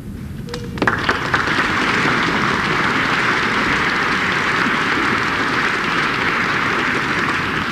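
Audience applauding. It starts with a few separate claps about a second in and swells into steady applause.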